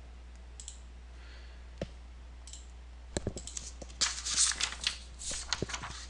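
Computer keyboard and mouse clicks: a few scattered single clicks, then a denser run of key taps about four seconds in.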